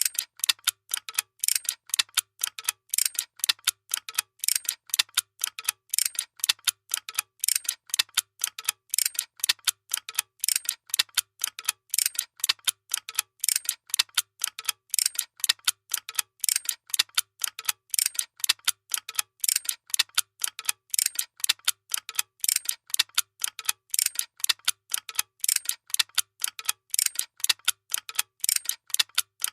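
Workshop machine clicking in a fast, even rhythm: sharp, bright mechanical clicks, about three or four a second, with a faint low thump recurring among them.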